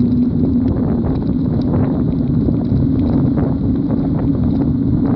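Wind buffeting the microphone and a low road rumble while moving quickly down a street, with a steady hum underneath that rises slightly in pitch.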